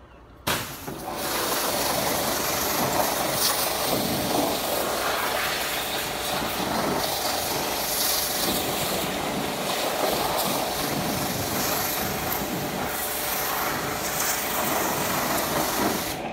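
Pressure washer spraying a high-pressure jet of water onto a boat engine: a steady hiss of spray that starts suddenly about half a second in and cuts off near the end.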